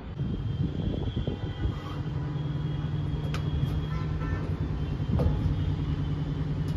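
A machine running with a steady low drone, with a few clicks and knocks over it.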